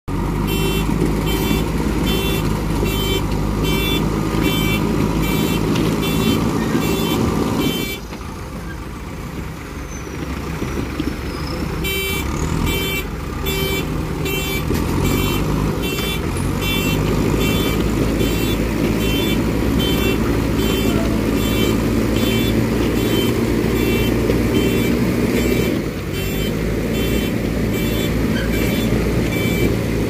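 JCB 3DX Super backhoe loader's diesel engine running under load while it pulls a road roller by chain. Its reversing alarm beeps about twice a second, stopping for a few seconds about eight seconds in, while the engine briefly eases, then starting again.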